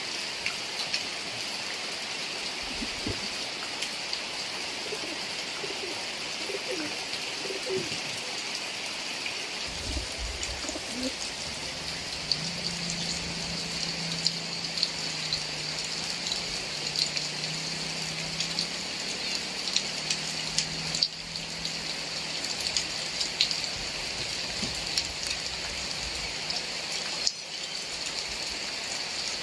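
Heavy rain falling steadily, with many sharp ticks of drops landing close by. Through the middle of the stretch a dove coos in the background, in a low repeated phrase.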